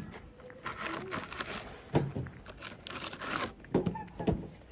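A tabby cat eating wet food and dry kibble from a clear plastic tub: wet chewing and crunching, with the tub crinkling and knocking as its face pushes into it. There are two short stretches of rustling and a few sharp clicks.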